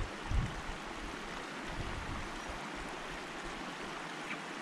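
Steady rush of creek water flowing through a beaver dam of sticks, with low wind buffeting on the microphone in the first couple of seconds.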